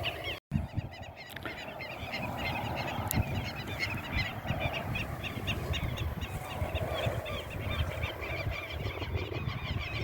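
A dense chorus of many birds calling, short calls repeated rapidly without a break, over a low fluctuating rumble, with a brief dropout about half a second in.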